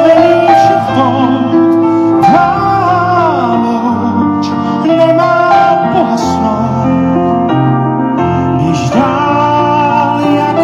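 A man singing live into a microphone through a PA system, over instrumental backing music, with vibrato on held notes.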